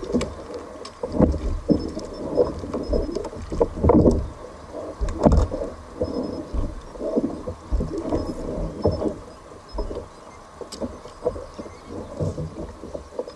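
Sea water sloshing and slapping against a fishing kayak's hull, with irregular low knocks and splashes.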